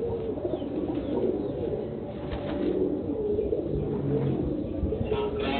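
Several domestic pigeons cooing continuously, close by.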